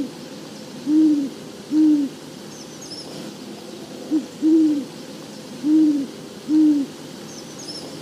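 Great horned owl hooting: low, soft hoots in the species' rhythm. Two hoots about a second apart, then after a pause a phrase of a short hoot running straight into a longer one, followed by two more.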